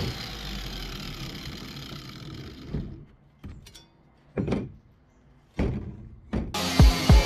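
Small handheld cut-off saw winding down after a cut, its whine falling away over the first few seconds. Then several separate clanks as the steel saw blade is handled and a cut-off toothed piece is set down on the table.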